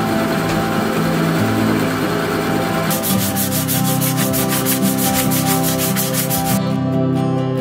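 A drill bit boring into a wooden board gives a steady grinding noise. About three seconds in, this gives way to sandpaper rubbed quickly back and forth by hand across a small wooden block, in fast, even strokes several times a second.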